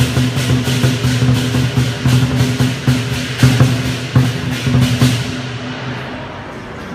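Lion dance percussion: a large Chinese drum beating a fast, driving rhythm under crashing cymbals. It stops about five seconds in, leaving the murmur of the crowd.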